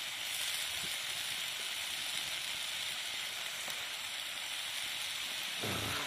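Chopped mixed vegetables sizzling in hot oil in a kadai, a steady frying hiss.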